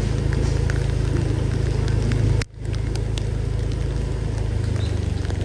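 Steady low engine rumble of street traffic, cutting out briefly about two and a half seconds in.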